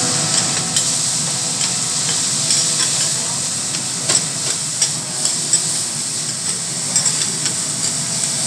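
Food sizzling on a teppanyaki griddle: a steady frying hiss, with irregular sharp clicks and taps throughout.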